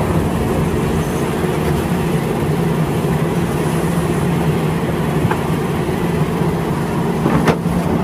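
Liebherr 974 hydraulic crawler excavator's diesel engine running steadily under load as it digs rock and dirt, a continuous low drone. A couple of faint knocks from the digging fall near the middle and near the end.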